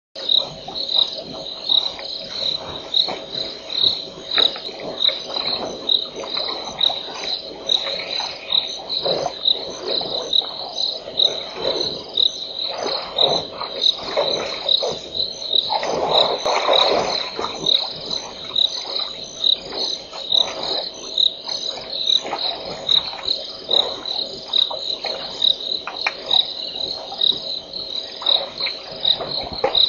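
Night insect chorus: a high chirping pulsing steadily about twice a second, over a rougher, lower chorus that comes and goes and is loudest about halfway through.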